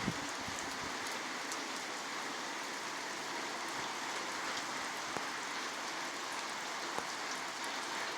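Steady rain falling, an even hiss with now and then a single sharper drop tick.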